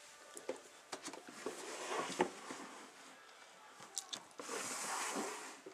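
A clear plastic tub knocked and clicked as it is handled, then scraping as it slides into a shelf of a plastic rack about four and a half seconds in.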